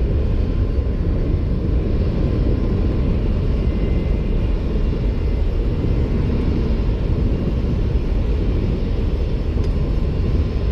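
Steady low rumble of running machinery, unchanged throughout.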